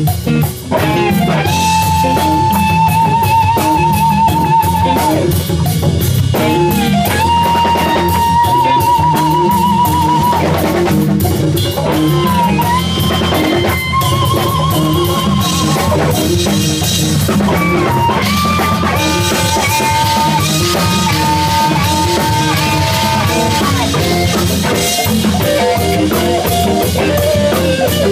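Live jazz-fusion band playing: an electric guitar lead of long held, bent notes with wide vibrato over bass guitar and a busy drum kit.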